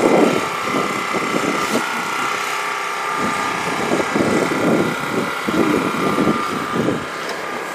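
A steady mechanical hum with a few irregular knocks and rustles over it.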